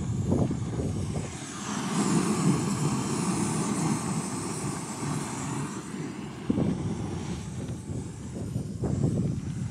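Wind buffeting the microphone as a low, uneven rumble. For several seconds in the middle, the hiss of a backpacking gas canister stove's burner under a pot joins it.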